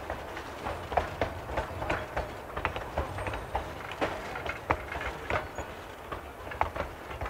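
Narrow-gauge passenger coaches rolling past, their wheels clacking over the rail joints in a quick, uneven run of clicks over a low rumble.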